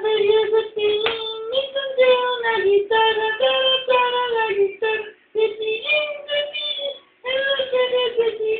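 A high, child-like voice singing a melody in short phrases, the pitch stepping up and down, with brief breaks about five and seven seconds in.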